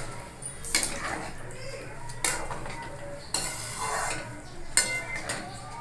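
Metal ladle stirring soya chunk and potato curry in a metal kadhai, scraping and knocking against the pan about once a second.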